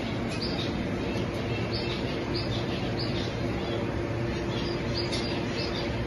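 Caged lovebirds chirping: short, high chirps coming a couple of times a second over a steady background hum.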